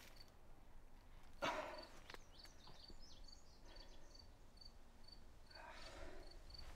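A person shifting and pushing up on loose stones and dry leaves, with a rustling scrape loudest about a second and a half in and a softer one near the end. Under it, crickets chirp faintly and evenly, two or three chirps a second.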